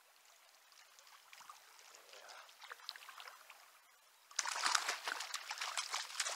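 A hooked brown trout thrashing and splashing at the surface beside the boat as it is drawn in by hand, starting suddenly about four seconds in after faint trickling water.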